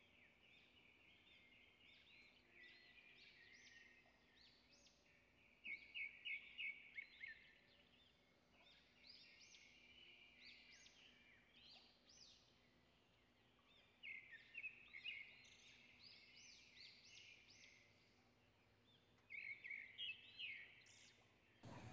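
Near silence with faint, high bird chirps in the background, coming in short clusters of quick repeated notes about six, fourteen and twenty seconds in.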